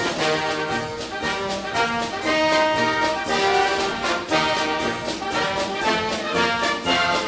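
Background music: a brass and orchestral piece with held trumpet and trombone notes over a steady beat.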